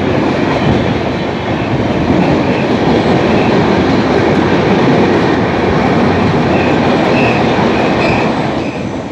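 Indian Railways passenger train running at speed, heard from on board: a loud, steady rumble and rattle of wheels on the rails, with another train passing close on the adjacent track.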